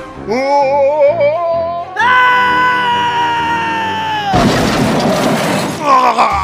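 Music: a wavering, voice-like melody, then one long held note that falls away about four seconds in, followed by a noisy stretch and more wavering tones near the end.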